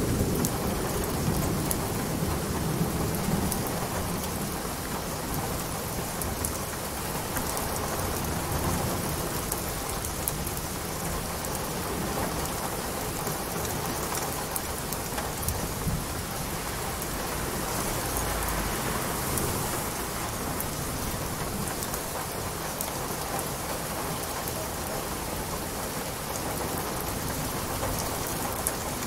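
Steady rain falling, a dense even hiss with fine drop ticks, with low rumbles of thunder underneath, strongest in the first few seconds.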